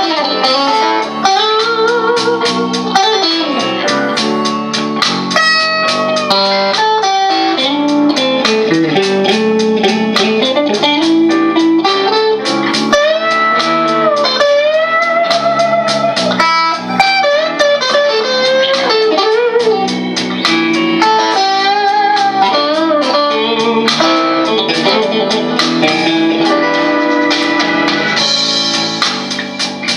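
Fender Squier Stratocaster electric guitar with a crunch tone playing improvised blues lead lines, with frequent string bends and vibrato, over a blues backing track.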